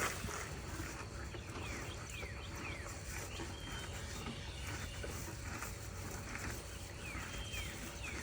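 Birds chirping: short falling chirps in quick runs of about three, about two seconds in and again near the end, over a steady low background rumble.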